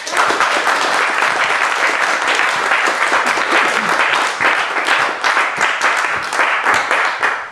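Audience applauding, a steady patter of many hands clapping that dies away at the end.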